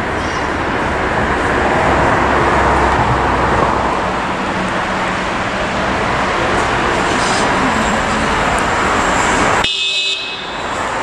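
A Bogestra light-rail car (Duewag Stadtbahnwagen B) approaching the platform round a curve, with loud, steady running noise. Near the end the sound changes abruptly and a brief high wheel squeal comes in.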